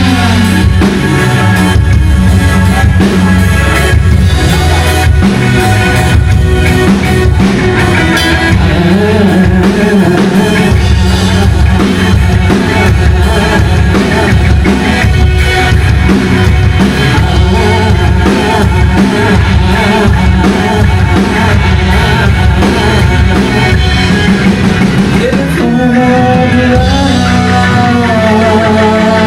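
A band playing rock music with drum kit, guitar and singing. Near the end the drumming drops away, leaving held notes.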